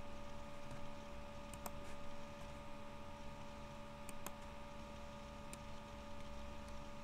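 Steady electrical hum and hiss of a computer recording setup, with a few sharp computer mouse clicks.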